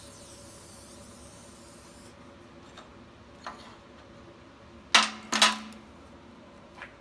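Steel hold-down clamp set down on a perforated steel welding table: a couple of light knocks, then two loud metal clanks about half a second apart with a short ringing, and one more light knock near the end. A faint hiss dies away over the first two seconds.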